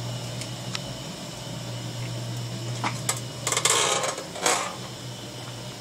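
Metal tools and parts clinking and rattling on a workbench in a few short clatters in the second half, over a steady low electrical hum.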